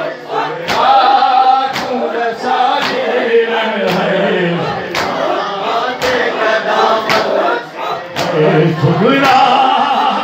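Men chanting a noha (Shia mourning lament), a lead voice on the microphone with others joining in, over rhythmic chest-beating (matam) that strikes together about once a second.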